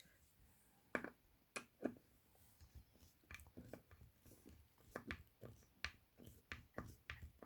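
Faint, irregular clicks and crackles of a hand screwdriver driving a self-tapping screw into wood.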